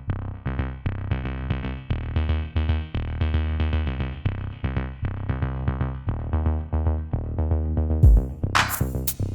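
Electronic outro music: synthesizer notes over a steady drum-machine beat, with sharper percussion hits coming in near the end.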